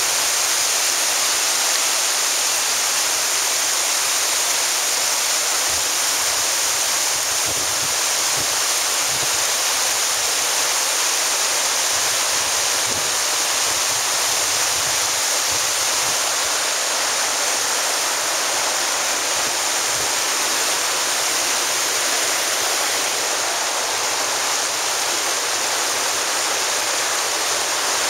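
Waterfall: white water rushing steadily over rock ledges into a creek.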